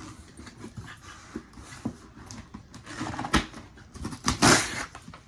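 Cardboard box being pulled open by hand: scraping and crackling cardboard with sharp clicks, and a loud ripping of packing tape or cardboard about four seconds in.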